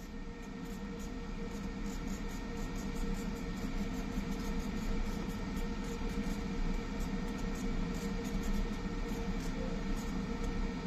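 Fiber laser marking machine running, a steady hum with faint irregular ticks over it.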